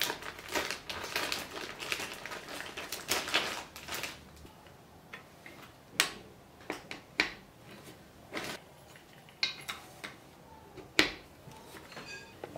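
A plastic bag of chair casters crinkles for the first few seconds. Then come about six sharp clicks and knocks, spaced out, as the casters' stems are pushed into the ends of the swivel chair's base legs.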